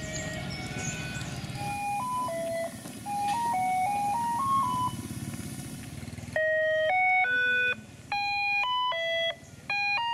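An electronic jingle of clean beeping tones: first a simple single-note tune over low rumbling background noise, then, about six seconds in, a louder run of chord-like notes stepping through a melody.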